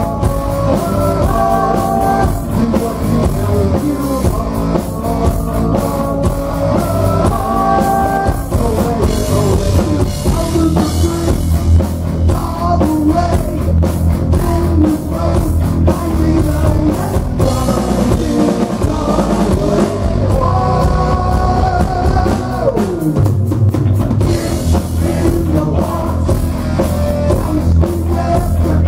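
Heavy metal band playing live: electric guitar and drum kit with a male voice singing. The music twice slides down in pitch in long falls, about a third of the way in and again about three-quarters through.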